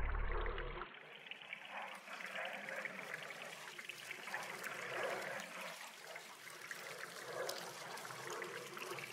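Faint trickling, bubbling water sound, steady with slow swells. A deep low rumble at the start cuts off abruptly about a second in.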